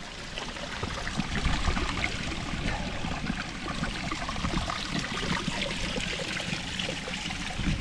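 Small mountain spring trickling steadily out of the rock and down a narrow stony channel.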